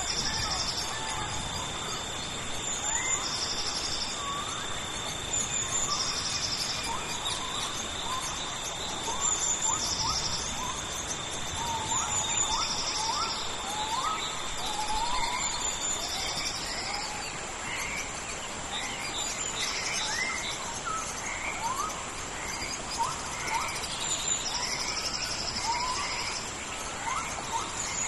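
Tropical rainforest ambience: a steady hiss of rain under many birds calling in short rising whistles. Insects buzz in regular pulses every two to three seconds over a steady high insect whine, and a second steady insect tone stops about halfway through.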